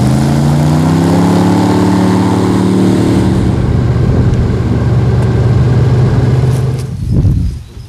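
Airboat's engine and caged air propeller running loud, the engine note sinking a little over the first few seconds and then holding steady. It falls away about seven seconds in.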